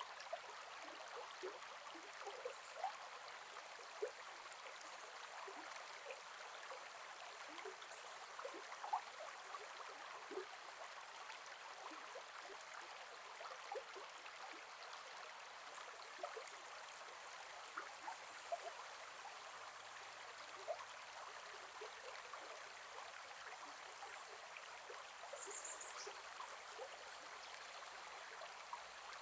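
Gentle forest river flowing steadily: a soft, faint rushing of water with frequent small gurgles and plinks.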